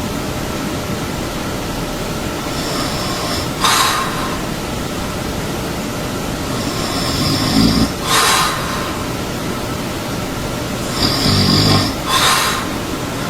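A person snoring in a slow, regular rhythm, about once every four seconds: a low snore on each breath in, then a short breathy exhale, over a steady hiss.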